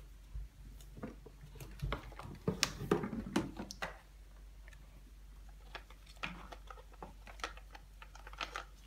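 Hands handling a toy pail on a string and a plush dog: scattered soft knocks, clicks and rustles, busiest about three seconds in and again near the end.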